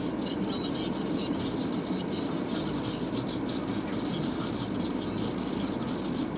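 Steady rumble of a car idling in traffic, heard from inside the cabin.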